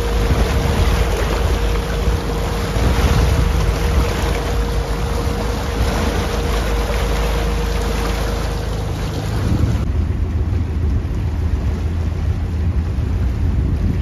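Motorboat under way: the engine's low hum under the rush of its churning wake, with wind on the microphone. About ten seconds in, the rushing water and wind drop away, leaving mainly the low engine hum.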